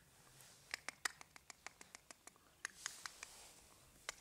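Puppies' claws and paws clicking and tapping on rubber floor tiles as they scamper about: a quick, irregular run of light, sharp clicks.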